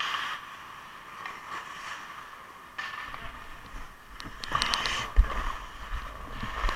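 Ice skate blades scraping and cutting on the ice as the wearer skates out from the bench, with wind rumbling on the head-mounted camera's microphone from about three seconds in. A quick cluster of sharp clicks about four to five seconds in.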